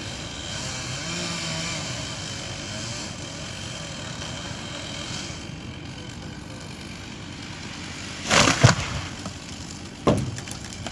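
Steady outdoor background noise, broken about eight seconds in by a loud, sharp knock or crash lasting about half a second, with a second, shorter one about two seconds later.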